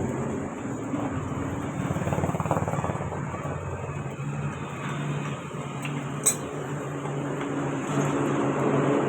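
A motor running steadily with a low hum that rises and falls slightly in strength, and one sharp click about six seconds in.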